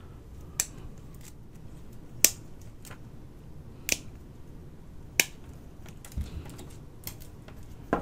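Side cutters snipping black plastic cable ties off a bundle of wires: four sharp snips about a second and a half apart, then a few quieter clicks near the end.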